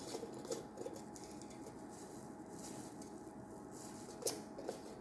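Faint patter of garlic powder being shaken from a spice jar onto a raw chicken in a pot, with light rustling of a plastic glove and a few small clicks, the sharpest about four seconds in.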